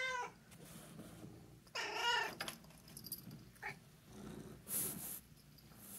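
Domestic cat meowing: a short meow as it begins and a longer one about two seconds in, then a brief chirp.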